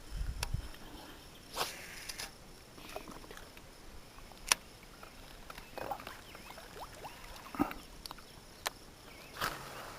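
Quiet outdoor ambience broken by a few sharp single clicks and several brief rustles and knocks, as of small handling noises.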